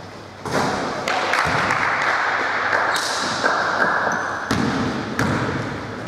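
Gym-hall game noise: a burst of shouting and crowd noise starts about half a second in and carries on for about four seconds, echoing in the hall, with a few sharp thuds of the basketball on the court.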